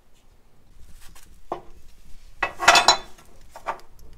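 Steel bracket plate being handled against a steel cross member: a few light knocks, then a short burst of metal clinking and scraping about two and a half seconds in.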